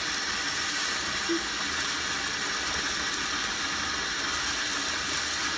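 Bathtub faucet running at high pressure, its stream pouring onto a bubble bar held in it and splashing into foamy bath water: a steady hiss.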